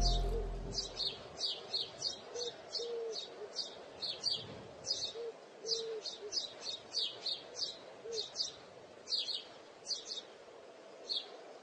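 Birds chirping: a string of short, high chirps, two or three a second, with a few low, short notes in the first half. A fading tail of music dies away in the first second.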